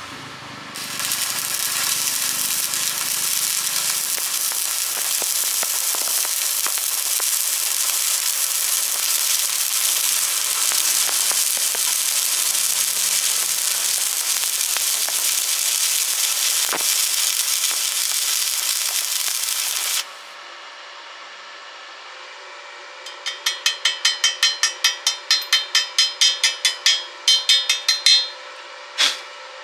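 Stick-welding arc crackling and sizzling steadily for about nineteen seconds, then cutting off suddenly as the arc is broken. A few seconds later come rapid metallic scraping strokes, about three a second for some five seconds, as the weld is cleaned, and then one last stroke.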